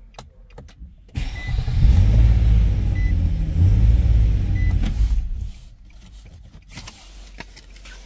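A Nissan Maxima's engine starts about a second in and runs loudly for some four seconds, then stops abruptly. Three short high beeps, about a second and a half apart, sound over it.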